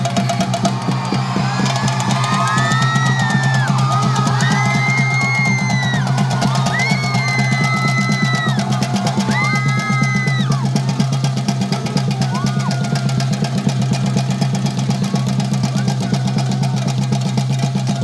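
Theyyam ritual drumming: chenda drums beaten in a fast, continuous roll. A series of held high notes, each about a second long, sounds over the drums from about two to eleven seconds in.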